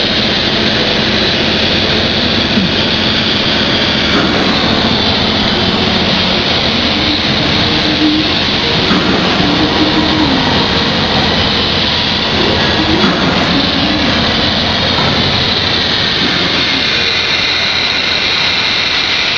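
Loud, steady rushing of flow through a self-cleaning auto strainer and its industrial pipework during the cleaning process, with a faint wavering hum underneath.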